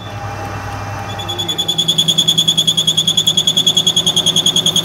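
Metal lathe cutting a steel workpiece: the tool bit squeals with chatter against the spinning face, a high-pitched whistle pulsing about ten times a second over the low hum of the lathe. The squeal drops out briefly and comes back about a second in as the tool bites again.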